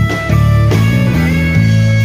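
A band playing an instrumental passage: a deep electric bass line changing notes, drum hits, guitar and held keyboard notes.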